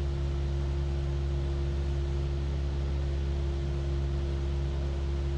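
Steady drone of a light single-engine piston aircraft's engine and propeller in level flight: an even, unchanging hum with a steady low tone.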